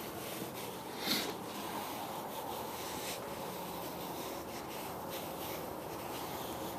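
Faint handling noise: soft rubs and scattered light ticks, one a little louder about a second in, over a steady background hiss.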